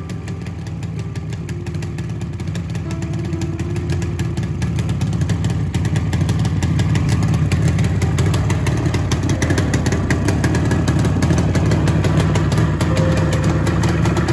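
Yamaha RD350's air-cooled two-stroke parallel-twin engine running on its first start after a rebuild, getting louder over the first several seconds and then holding steady. The engine still needs tuning.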